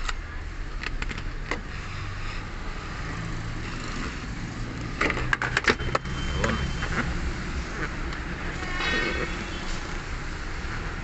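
Steady low vehicle hum, with a quick cluster of sharp clicks and knocks about five to six seconds in and a brief scraping squeak near nine seconds, as parts under the car's rear seat are handled.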